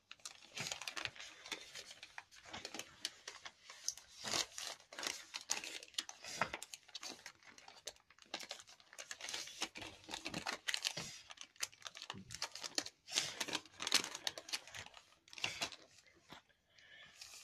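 A sheet of lined notebook paper being folded by hand into a paper airplane: irregular crinkling and rustling as the creases are pressed flat and hands slide over the paper.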